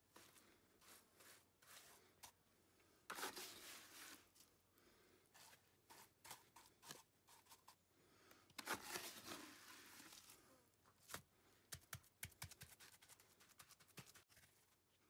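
Faint gritty scraping of wet concrete mix as a block scoops it and presses and spreads it into a foam mold, with scattered small clicks. Two longer scraping passes come about three and nine seconds in.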